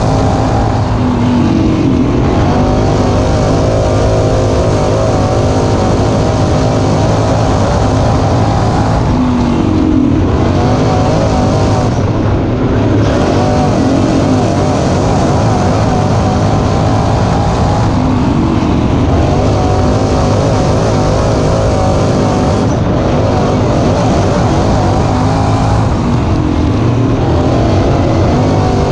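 Dirt-track crate late model race car V8 engines running at racing speed. The engine note rises and falls over and over, about every eight to nine seconds.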